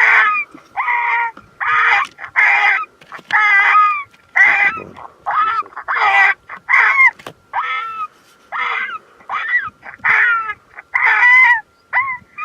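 A long, steady run of loud, harsh yelping or honking calls, about one and a half a second, each one sliding down in pitch.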